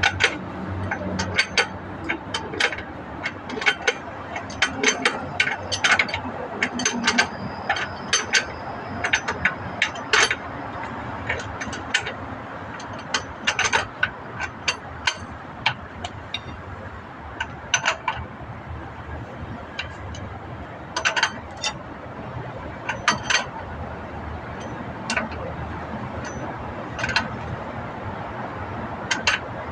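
Hand tools working on a truck's drum brake: irregular metal clicks and clinks, often several in quick succession, with pauses between them.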